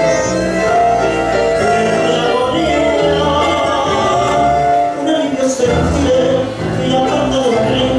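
Male singer singing a tango into a microphone over instrumental accompaniment.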